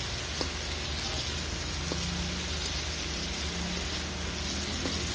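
Chopped tomato, onion and garlic sizzling steadily in hot oil in a nonstick wok, with a few faint clicks of a spatula stirring them.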